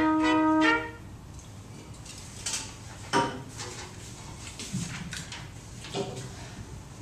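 Trumpet trio playing a sustained chord that stops about a second in. Then a few scattered metallic clinks and knocks follow as the trumpets are lowered and handled at the music stands.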